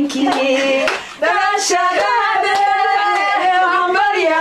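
Several women singing a birthday song together, with hand clapping.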